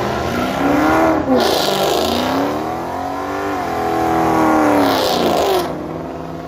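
Ford Mustang's engine revving hard through a donut burnout, its pitch climbing and falling as the throttle is worked, while the spinning rear tyres hiss and screech from about a second in to near the end.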